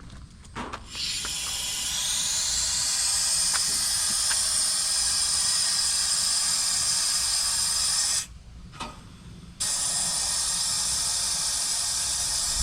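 Nitrogen gas hissing hard out of a hose, blowing out the refrigerant line set. It starts about a second in, stops for a second or so past the middle, then hisses on again.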